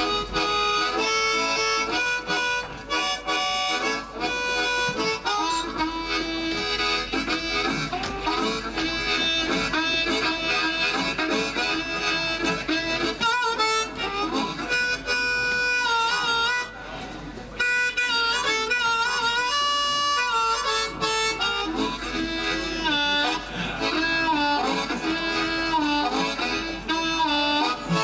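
Amplified blues harmonica solo, the harp cupped against a handheld microphone, playing wailing lines that bend and slide in pitch over a backing band. There is a short break in the phrase about two thirds of the way through.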